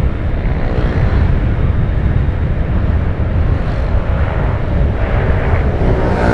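Steady low rumble of a vehicle on the move: engine and road noise.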